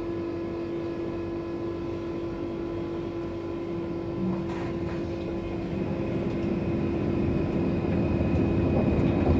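Luas tram heard from inside: a steady electrical hum while it stands still, then running noise that grows steadily louder over the last few seconds as it pulls away.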